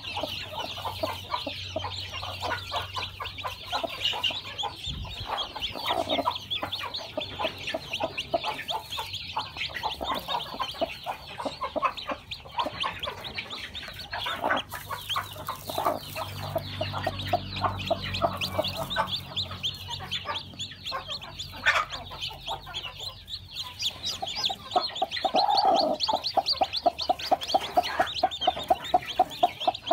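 Newly hatched chicks peeping constantly in quick, high calls, with a hen clucking lower beneath them; over the last several seconds the clucks settle into a steady rhythm of about two a second.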